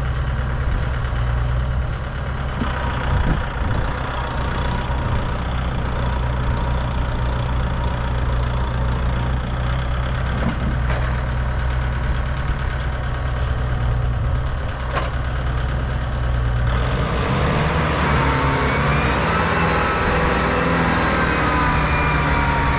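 Tractor diesel engine running steadily at low revs. About three-quarters of the way in, the machinery noise gets slightly louder and harsher.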